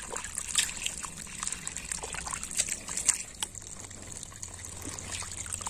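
A hand scooping through shallow muddy water, with water trickling and dribbling off the fingers and small splashes, and a few light clicks scattered through.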